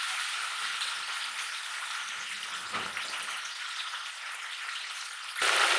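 Marinated chicken pieces sizzling in hot oil in a kadhai over a high gas flame, a steady frying hiss that grows markedly louder near the end.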